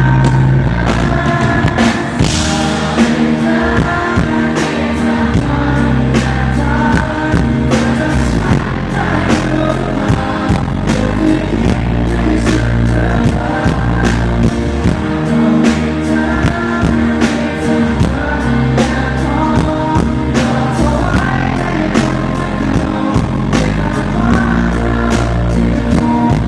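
Live pop-rock band playing with a lead vocalist singing over drums, guitars and bass. The low end is heavy and boomy because it is recorded right in front of a subwoofer cabinet.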